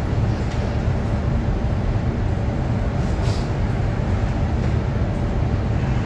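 Steady low rumble of laboratory ventilation running, with a faint steady hum above it and a brief soft hiss about three seconds in.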